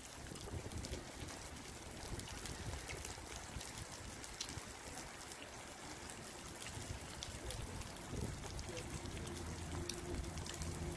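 Faint outdoor ambience: a soft hiss of wind on the microphone with scattered light clicks. About eight seconds in, the steady low drone of a distant motor joins.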